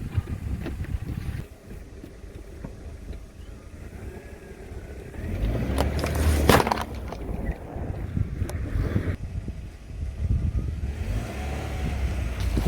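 Car engine running low while a tyre rolls slowly over objects, with a loud burst of cracking and crunching about six and a half seconds in and a few sharp snaps shortly after.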